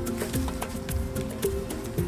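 Background music with held notes over a steady low beat and light percussion.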